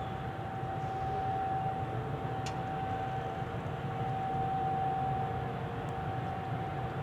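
Distant Federal Signal 2001-130 outdoor warning sirens sounding a steady tone, with a fainter lower tone beneath, swelling slightly about halfway through, over a low rumble.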